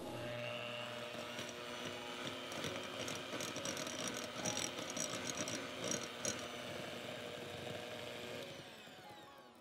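Electric hand mixer running, its two steel beaters whirring through soft cookie batter of creamed butter and egg in a glass bowl, with some light clicking midway. Near the end the motor's pitch falls and the sound fades as it winds down.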